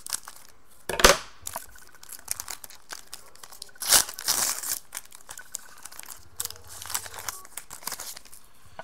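Foil wrapper of a trading-card pack being cut open with scissors and handled as the cards are pulled out: scattered crinkling, a sharp crackle about a second in and a longer, louder burst of crinkling about four seconds in.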